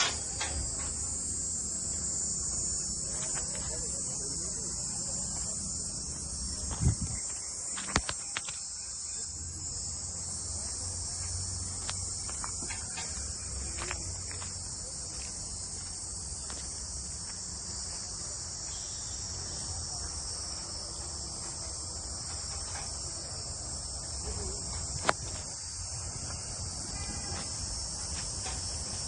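Steady high-pitched chirring of insects, with a few short knocks about seven, eight and twenty-five seconds in.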